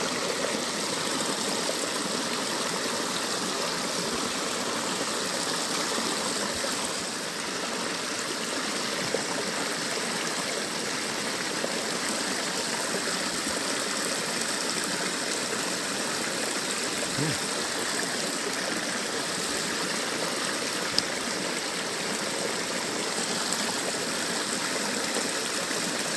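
Small stream flowing steadily over rocks, with a few faint ticks.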